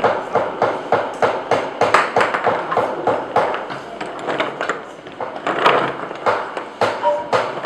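Wooden pieces knocking and clacking together in quick, irregular succession, several sharp knocks a second.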